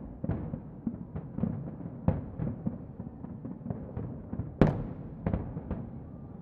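Aerial fireworks shells bursting in a dense, irregular run of booms, two or three a second. One sharper, louder bang comes about four and a half seconds in.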